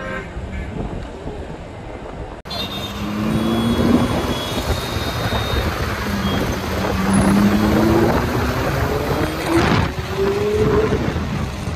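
Car engine accelerating in street traffic, its pitch rising three times in separate pulls, over steady road noise. The sound drops out briefly about two and a half seconds in.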